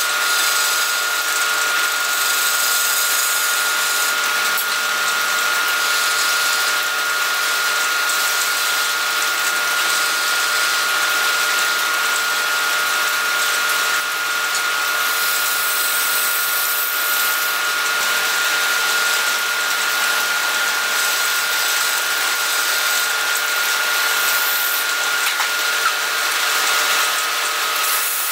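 Wood lathe running with a steady motor whine and hiss while a hand-held chisel cuts a small spinning wooden piece. Near the end, sandpaper is pressed against the turning wood.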